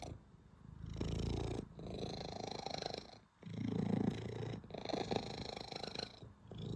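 Domestic cat purring loudly and contentedly while being stroked. The purr swells and fades in a steady breathing rhythm, with brief dips about every one and a half seconds.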